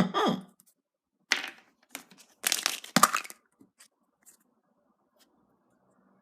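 A surprise egg's wrapper being torn open and crinkled by hand, in a few short rips. The loudest comes around three seconds in, and a few faint ticks follow.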